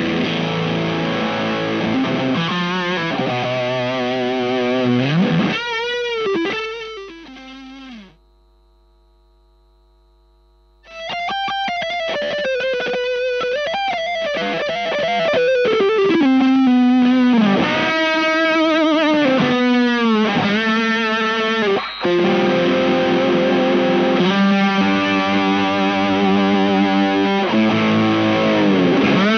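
Strat-style electric guitar with single-coil pickups played through a Space Sounds Galactic Fuzz pedal into a clean Ceriatone amp, with the bias knob all the way down: a lot of fuzz and long sustain on held notes and string bends. About eight seconds in, the playing dies away, leaving only a faint hum from the single coils for about three seconds, then it resumes.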